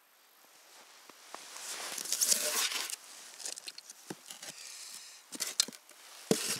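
Snow and ice crunching underfoot on a frozen river: a longer crunching stretch about two seconds in, then scattered crunches and clicks, and a sharp knock near the end.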